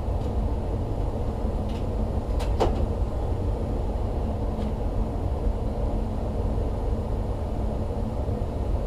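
Gas furnace running, its blower moving air with a steady low rumble and a faint hum. A single short click comes about two and a half seconds in, with a couple of fainter ticks around it.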